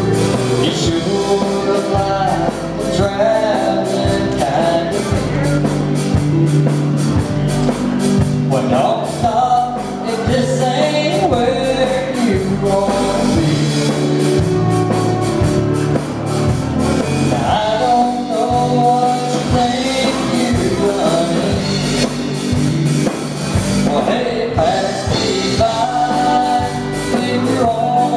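Live country band playing a song: a woman singing lead over electric guitars and drums.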